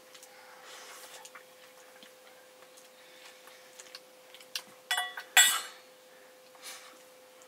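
Metal spoons clicking and scraping against stainless steel bowls while eating. About five seconds in comes a louder ringing clink of metal, followed at once by a sharp knock.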